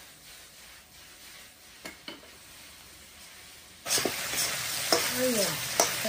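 Low background with a couple of faint clicks, then about four seconds in, loud frying starts abruptly: cabbage and cured pork sizzling in a wok as a metal spatula stirs and scrapes it, clicking against the pan.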